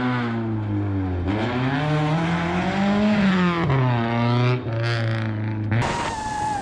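Honda Civic rally car's engine revving hard under full acceleration on a gravel stage, its pitch climbing and then dropping sharply at several gear changes. Near the end it cuts abruptly to a steady wavering whine with wind noise.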